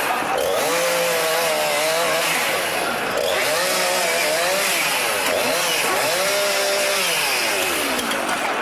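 Chainsaw engine revving up and down over and over as it cuts into a wall board.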